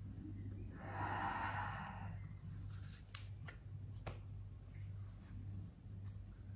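A person breathing out slowly, held in a deep forward-folded straddle stretch. The breath starts about a second in and lasts about a second, over a steady low hum, with a few faint clicks later.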